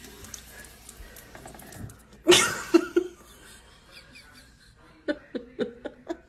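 A short, loud cry about two seconds in, then rapid bursts of laughter, about three or four a second, near the end.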